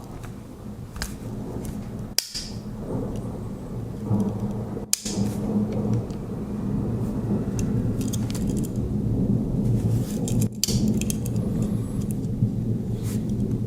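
Small metal clicks and clinks of a Swiss Army knife being handled and its tools worked, over a steady low rumble.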